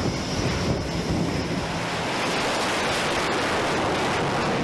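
F/A-18 fighter's twin jet engines running, a steady, even noise with no breaks.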